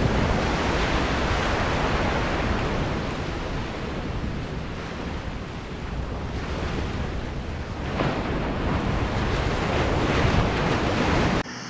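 Small Atlantic waves breaking and washing up a sandy beach, with wind buffeting the microphone. The surf swells near the start, eases off, and swells again about eight seconds in.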